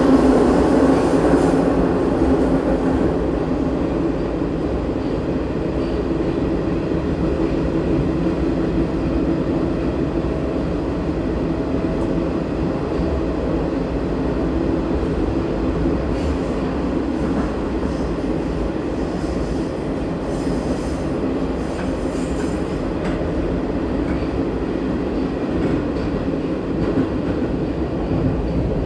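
Interior running noise of an 81-760/761 'Oka' metro car moving through a tunnel: a steady rumble of wheels on rail with a droning hum. It is loudest in the first couple of seconds, then settles to an even level.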